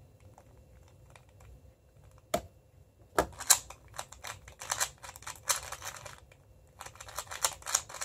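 MoFang Jiaoshi MF2S 2x2 speedcube being turned fast by hand: a quick run of plastic clicks and clacks starting about three seconds in, after a near-quiet start with a single click.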